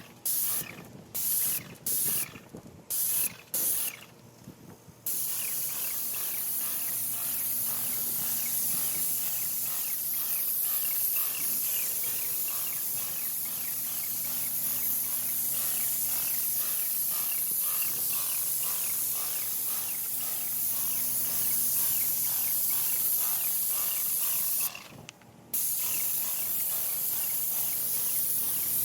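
Paint sprayer hissing as the trigger is pulled: several short bursts at first, then one long continuous spray, broken by a brief pause near the end.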